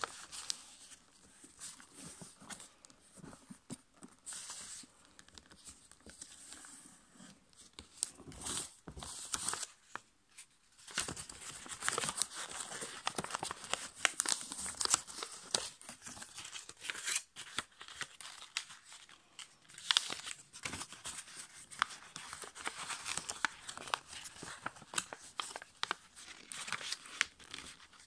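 A sheet of A5 copy paper being folded and creased by hand: irregular crinkling and rustling with sharp little crackles as the folds are pressed down. It dies away briefly about ten seconds in, then picks up again and goes on busily.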